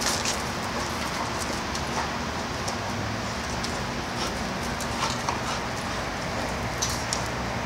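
A dog's paws scuffing and patting on a gravel and dirt yard: scattered light clicks over a steady background hiss.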